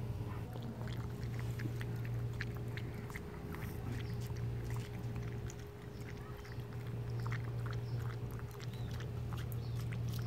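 A beagle lapping liquid from a bowl: quick, irregular wet licking clicks, over a steady low hum.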